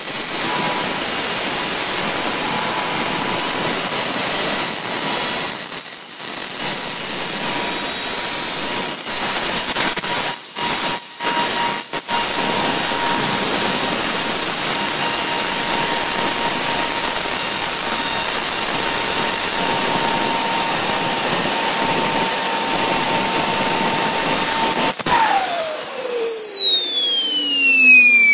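Kingtech K80E model jet turbine running steadily: a loud jet hiss with a high, steady whine. About 25 seconds in it is shut down, and the whine falls steeply in pitch as the rotor spins down into its post-shutdown cooling cycle.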